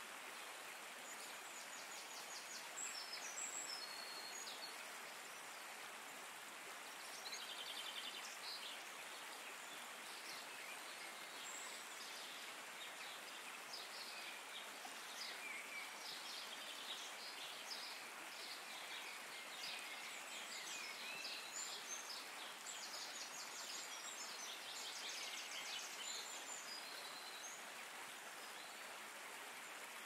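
A soft, steady water hiss with small songbirds chirping and trilling on and off over it: a nature soundscape.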